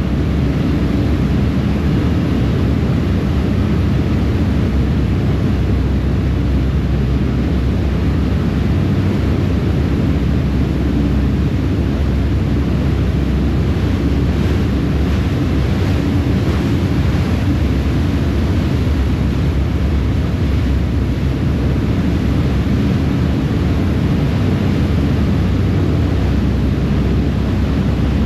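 Ferry under way: a steady low rumble of the engines mixed with the rush of the churning wake behind the stern, with wind on the microphone.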